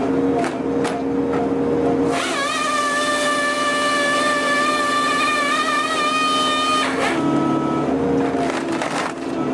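Excavator running with a firewood processor head at work: a steady engine hum with a few knocks, and from about two seconds in a high-pitched hydraulic whine that rises, holds for about five seconds, then stops.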